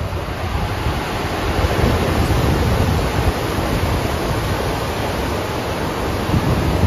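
FlowRider surf simulator running: a sheet of pumped water rushing up and over the padded wave surface, a steady loud rush of water.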